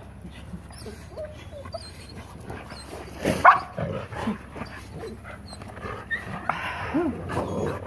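Golden retrievers whimpering and whining with short high cries, the excited crying of dogs greeting their returning owner. One louder, sharper yelp comes about three and a half seconds in.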